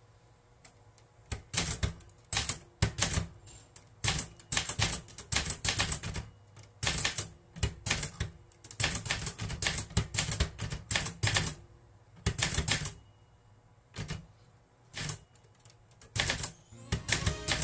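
Marathon 912DLX manual typewriter typing: keys and typebars strike the paper in quick clusters of sharp clacks with short pauses between. Music comes in near the end.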